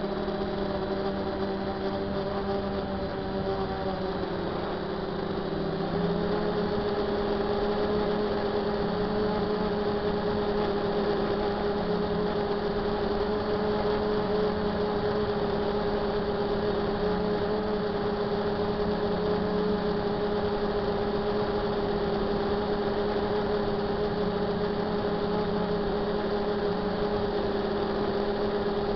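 DJI F450 quadcopter's motors and propellers humming steadily, heard from a camera on the drone itself. The pitch and level step up slightly about six seconds in.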